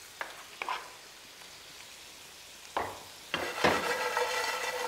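A few light clicks of a spoon against the pan, then food frying in a hot pan on a gas stove sizzling loudly from a little past the middle as the pan is tossed, with margarine just spooned in.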